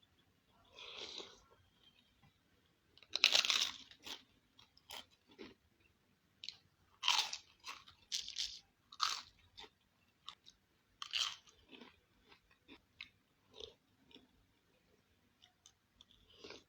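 A person eating bakso Malang close to the microphone: irregular crunches and chewing sounds, the loudest bite about three seconds in.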